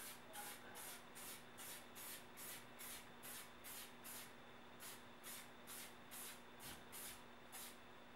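Aerosol spray paint can sprayed in quick, faint short bursts, about two or three a second, stopping near the end.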